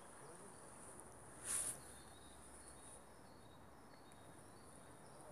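Near silence outdoors: a faint steady high-pitched hiss, with one brief soft rustle of noise about a second and a half in.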